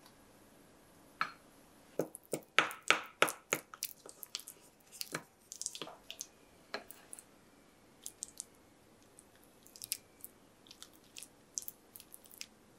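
Wooden spoon working a thick miso and salt-koji paste in a small glass bowl, a quick run of sharp clicks and wet squishes a couple of seconds in. Then sparser, softer dabs as the paste is spread onto raw salmon fillets in ceramic dishes.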